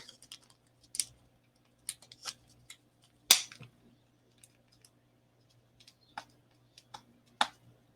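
Scattered small clicks and taps of fingers handling paper and peeling the backing off craft tape, irregular, with one louder snap about three seconds in.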